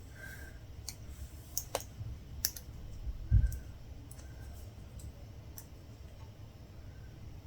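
Latch hook tool clicking as its metal latch snaps open and shut while yarn is hooked through rug canvas: a few sharp, irregular clicks. A dull low thump about three seconds in is the loudest sound.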